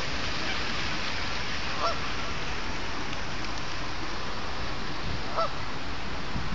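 Canada goose honking twice, two short calls about three and a half seconds apart, over a steady even background noise.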